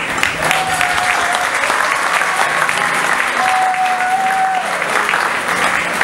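Audience applauding, with a few long steady notes held over the clapping.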